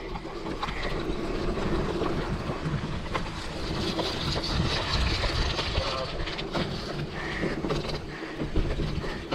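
Mountain bike rolling over a rough dirt trail: a steady rumble from the tyres with a continuous light rattle.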